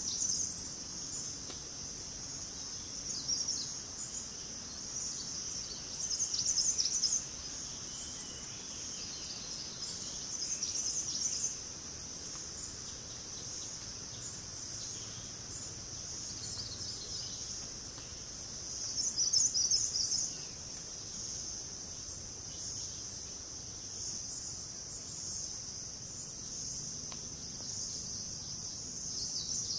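Forest insects keep up a steady high-pitched drone, broken every few seconds by short, louder bursts of high chirping calls, the loudest about two-thirds of the way in.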